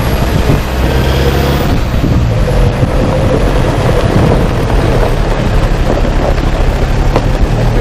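4x4 vehicle driving on a rocky off-road trail: a steady engine drone under loud, dense noise.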